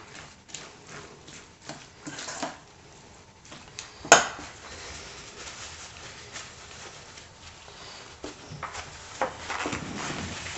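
Hands mixing shredded cabbage and mayonnaise in a stainless steel bowl: soft, wet rustling and squelching, with one sharp clack about four seconds in. After it, quieter rustling as hands are wiped on a paper towel.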